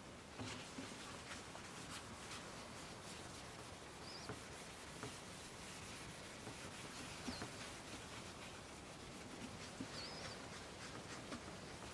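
Faint rubbing of a paper towel across a plastic headlight lens, wiping off lens clarifying compound, with light scratchy ticks from the towel.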